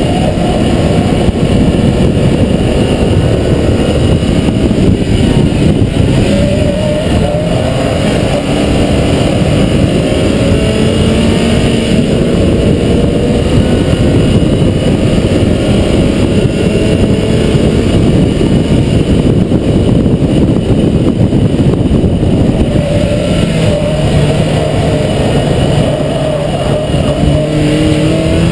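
Mazda MX-5 NB's 1.8-litre inline-four pulling hard on track, its pitch climbing through each gear and dropping back at the shifts, under a dense rush of wind and road noise.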